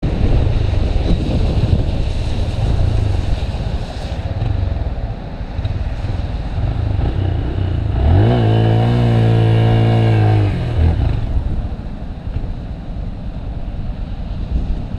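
Motorcycle engine running under rushing wind noise; about eight seconds in it revs up sharply and holds a high steady note for about two and a half seconds before dropping off, as for a wheelie.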